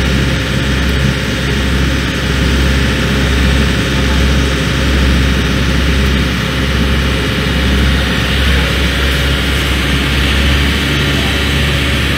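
A river ferry's engine droning steadily under way, heard from inside the passenger cabin, with a broad rush of water and wind noise over the low hum.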